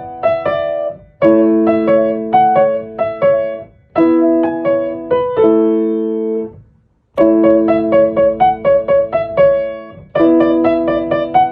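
Background music: solo piano playing short phrases of chords and melody notes that ring and fade, with a brief pause about halfway through.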